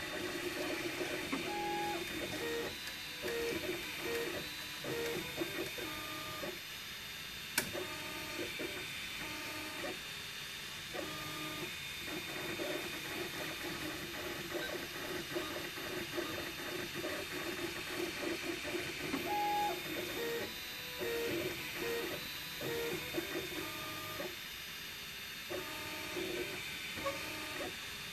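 MakerBot Replicator 2 desktop 3D printer printing: its stepper motors sing in short whining tones that jump from pitch to pitch as the print head moves back and forth, over a steady fan hiss. A single sharp click about seven and a half seconds in.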